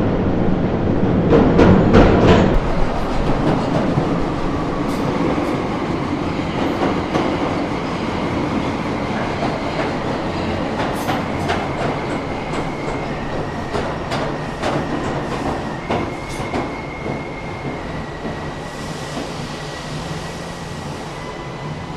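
Train running on rails: a heavy rumble that is loudest for the first couple of seconds, then steadier, with irregular clicks of the wheels over the rail joints. Faint high wheel squeal runs through the second half.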